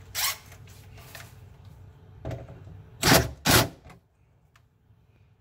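Handling noises from wiring work in a battery compartment: light clicks and rustling of cables and parts, then two loud, brief knocks a little after three seconds in.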